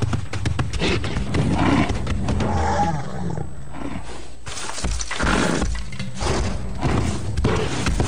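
Action-film soundtrack: dramatic music layered with animal roaring sound effects as a charging bull appears.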